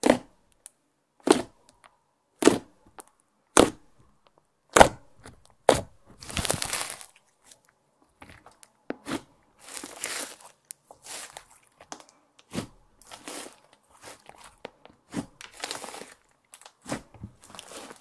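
Thick beige slime, clear slime with makeup mixed in, being pressed and poked by fingers: a sharp pop about once a second for the first several seconds, then rougher, scattered crackling and squelching as it is stretched and folded.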